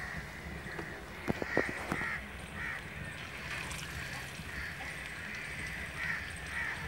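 Potato pakoras deep-frying in oil in an iron kadai, a steady sizzle, with a few sharp pops about a second and a half in. Crows caw repeatedly throughout.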